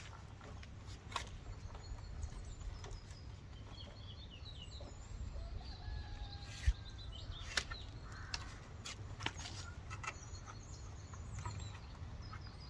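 Scattered clicks and knocks of car body parts being handled and pried apart, the sharpest about two thirds of the way in, over a low steady hum. Faint bird calls sound in the background.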